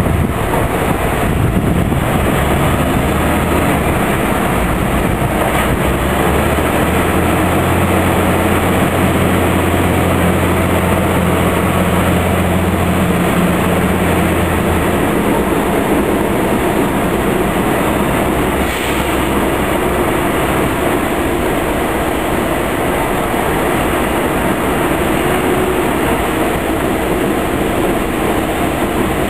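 Diesel locomotives running in a shop yard: a steady, loud engine rumble, with a deeper engine tone coming up strongly from about seven to fifteen seconds in.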